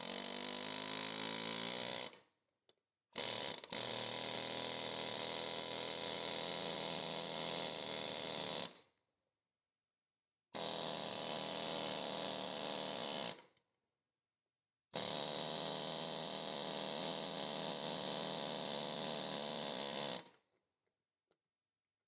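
Pneumatic air hammer running in four bursts of a few seconds each, with short pauses between, hammering on the end of a lawn tractor's axle shaft to drive off a rust-seized wheel.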